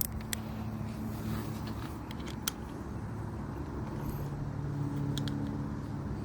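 A steady low engine hum, like a motor vehicle running nearby, whose pitch shifts slightly partway through. A few faint light clicks from the brake pad being adjusted sit over it.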